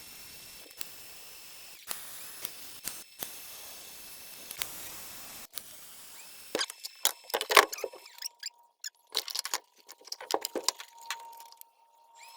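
Steady hiss of a TIG welding arc with scattered clicks for about six seconds. After that, irregular clinks and clanks of metal tubing and tools being handled.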